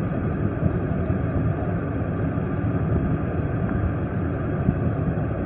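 Steady low rumbling noise inside a police car's cabin: engine and road noise picked up by a chest-worn camera.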